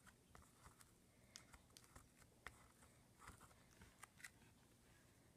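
Near silence: room tone with a few faint, scattered light ticks and taps.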